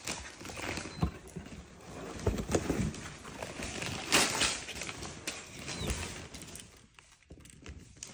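Irregular knocks, taps and rustling from capuchin monkeys and a person handling toys and a wooden busy board with metal latches.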